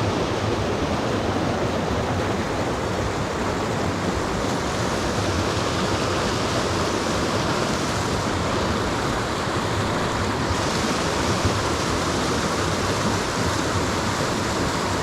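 Steady rush of flowing water: an even, unbroken noise.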